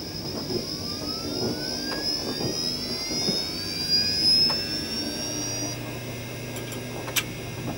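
Added sci-fi sound effect: a whine that climbs steadily in pitch for about five seconds and then stops. Under it run the low rumble and knocks of a running model train. A steady low hum comes in about five seconds in, and a single sharp click comes near the end.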